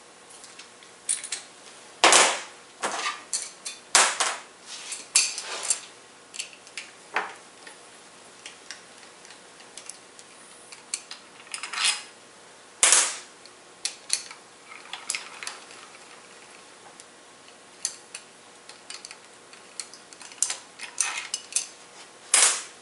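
Irregular metallic clinks and knocks of hand tools — an 11 mm socket on a speed-brace wrench and loosened bolts — against the engine's gearbox housing and the workbench as the inner housing bolts are removed. A louder clatter comes near the end as a tool is set down on the bench.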